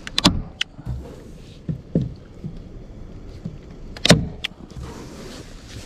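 Hand-squeeze stapler (tacker) snapping staples through a house-wrap sheet into plywood sheathing: a quick cluster of sharp clacks at the start, another just after, and the loudest clack a little after four seconds in, followed by one more. Softer handling sounds of the sheet and gloves come between the strokes.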